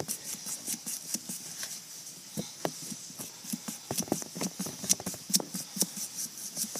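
Blade being worked through a pumpkin's rind: a fast, irregular run of sharp clicks and knocks as it stabs and saws into the shell.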